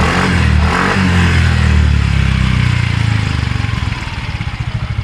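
Yamaha Mio Soul i 125 scooter's single-cylinder four-stroke engine through its stock exhaust pipe, revved up and held, then dropping back to idle about four seconds in, with a falling whine as it slows.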